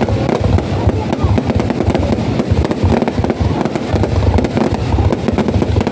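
Aerial fireworks going off in a dense, continuous barrage: many rapid sharp cracks over a steady rumble of low bangs, with no pause.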